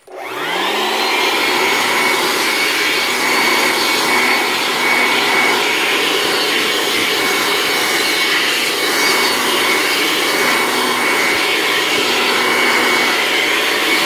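Handheld electric air blower switched on, its motor spinning up over the first second and then running steadily with a high whine and a rush of air. It is blowing water off the air conditioner's wet aluminium heat-exchanger fins after washing.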